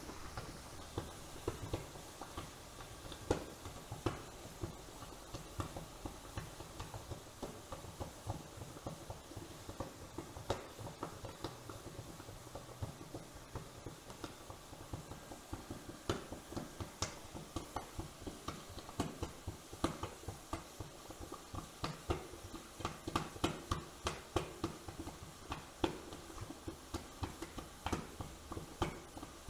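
Quench water boiling against a red-hot cast iron anvil sunk in a steel drum, with irregular crackling and popping that gets busier about halfway through.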